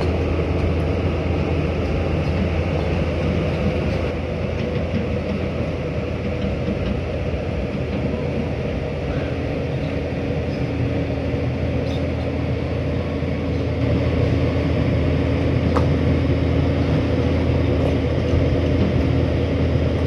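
Pindad crawler excavator's diesel engine running steadily as it works its bucket in river mud, a deep even drone. A second, higher steady tone joins about twelve seconds in, and it gets slightly louder soon after.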